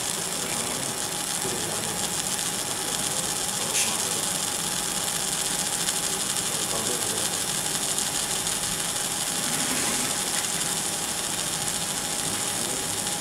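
Laser marking machine engraving stainless steel: a steady hiss and buzz of the beam working the metal, with a faint steady tone underneath.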